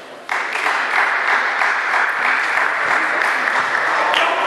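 Spectators clapping, starting suddenly about a third of a second in and going on steadily: applause after a table tennis point.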